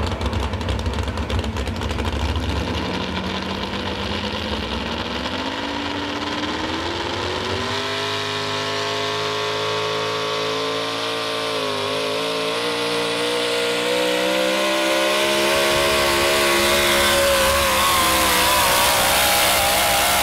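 Modified 4x4 pulling truck's engine at full throttle on a pull. After a low rumble, the engine note climbs steadily for several seconds, then holds at high revs with a brief dip about halfway and creeps higher toward the end.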